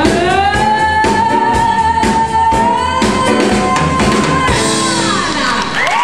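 Female singer belting one long note that slides up and is held, over a live band's drum beat and bass. The band stops about four and a half seconds in, and the audience begins whooping and cheering at the very end.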